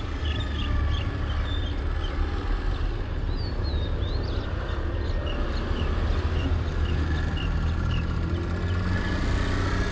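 Motorbike engine running steadily as a low rumble, with faint short high chirps.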